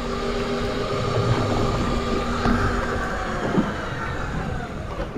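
Electric deep-drop reel motor winding line in, a steady whine that falls in pitch over the last couple of seconds as it slows near the surface.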